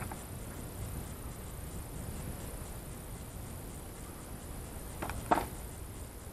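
Quiet riverbank ambience: a low rumble and a faint steady high hiss, broken about five seconds in by a short clack as the feeder rod is laid onto its rod rest.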